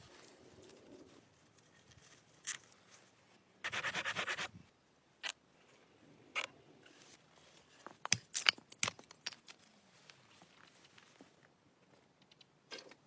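Scattered sharp clicks and cracks of hand work, with a short run of rapid ticking about four seconds in and a cluster of the loudest clicks about eight to nine seconds in.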